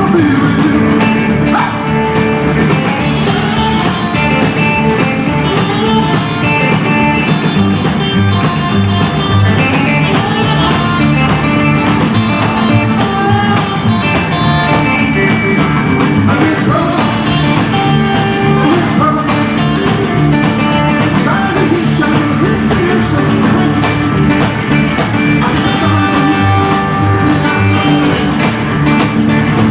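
Live rockabilly band playing a song: upright double bass, electric and acoustic guitars and drum kit, with a male lead singer.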